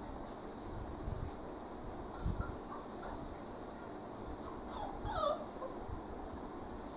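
Labrador puppy giving a few short, high whimpers about five seconds in, while it wants to get through a closed door.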